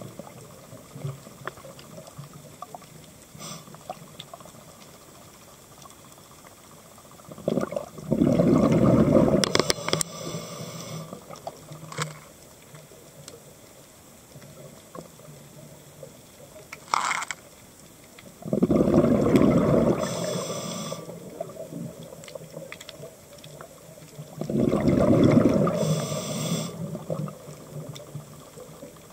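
Scuba diver's regulator breathing underwater: three loud gurgling bursts of exhaled bubbles, each two to three seconds long, the first about eight seconds in and the others about ten and six seconds later, with a quiet hiss and small clicks between.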